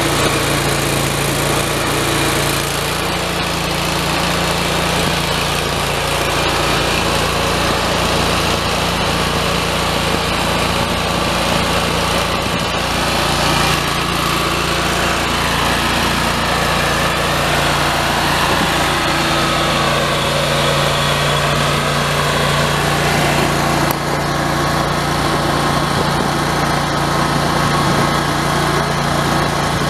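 Kohler two-cylinder gas engine of a 2014 Grasshopper 225K zero-turn mower, running steadily.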